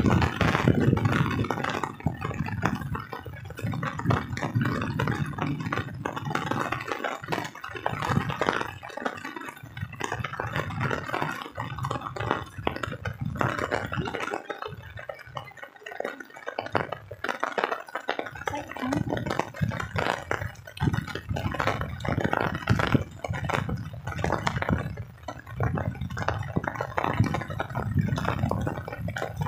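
Walking through wet grass and mud along a flooded rice-paddy bund in the rain: an irregular crackling, rustling and rubbing noise of footsteps and rain.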